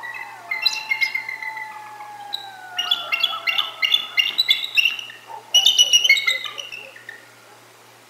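Bald eagles chortling: quick runs of high, piping notes, about four a second, the loudest run about five and a half seconds in. Under them, coyotes howl in long, slowly falling tones that die away about four seconds in.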